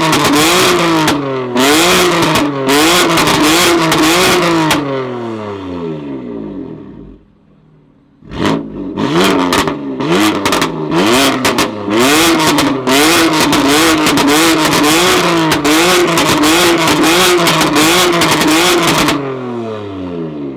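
Tuned sports car's loud aftermarket exhaust as the engine is revved in quick repeated blips, about two a second, with sharp crackles and pops. The revs die down about six seconds in, pick up again after a brief pause, and die down once more near the end.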